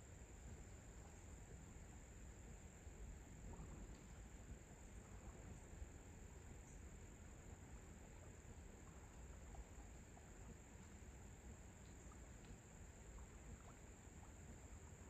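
Near silence filled by a faint, steady, high-pitched insect chorus, with a low rumble of outdoor background noise beneath it.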